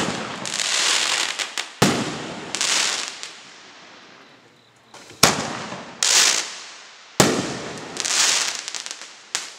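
Two Starget A8147 'Big Single Shock' single-shot firework tubes going off one after the other. Each fires with a sharp report, then bursts overhead about two seconds later with a bang followed by a hissing, crackling spray of white stars that fades out.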